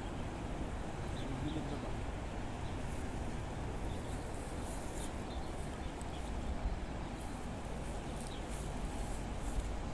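Steady rushing noise of the flowing river with wind, and a few faint, short, high bird chirps scattered through.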